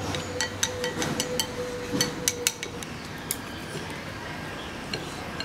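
Chopsticks clicking against a ceramic rice bowl while rice is shovelled into the mouth: quick clicks for the first two or three seconds, then only a few faint ones.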